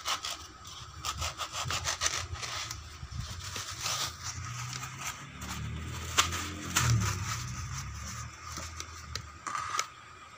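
A thin homemade blade ground from an old wood-saw blade sawing through a block of styrofoam, quick rubbing strokes over the first few seconds, then slower, irregular scraping and handling of the foam.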